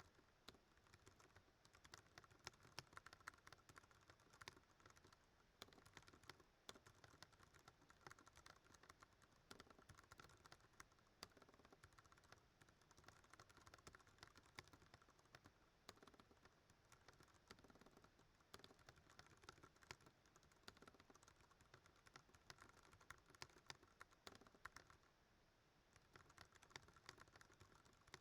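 Fast continuous typing on a Ducky One 2 Mini mechanical keyboard with Cherry MX Brown switches: a dense, irregular stream of key clacks, with a brief pause in the keystrokes near the end.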